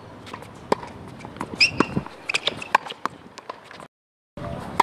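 Tennis balls struck by a racket and bouncing on a hard court: a run of sharp pops at irregular intervals, with a brief high squeak about a second and a half in. The sound cuts out completely for a moment near the end.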